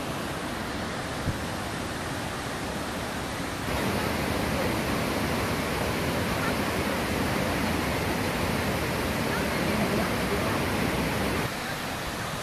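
Steady rushing of the Kuang Si Falls cascades, a full, even roar of falling water that grows louder about four seconds in and drops back near the end.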